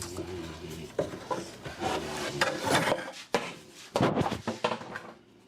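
A wooden pallet being dragged and shifted, with irregular knocks and scraping of wood.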